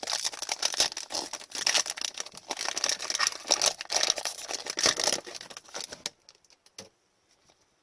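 Foil wrapper of an Upper Deck hockey card pack being torn open and crinkled by hand, a dense crackle that stops about six seconds in. A single light tap follows shortly after.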